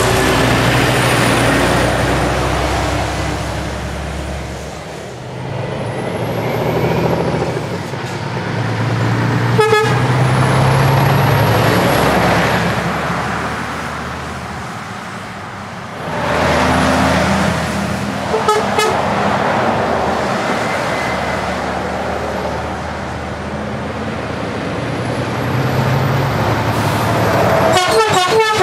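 Heavy diesel trucks passing close by one after another, each engine swelling and fading as it goes past. Short truck horn toots sound about ten seconds in, twice around eighteen seconds, and several times near the end.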